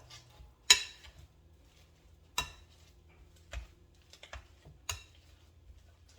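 Boiled breadfruit being mashed by hand, the utensil knocking against the bowl in a few scattered sharp clicks, the loudest about a second in.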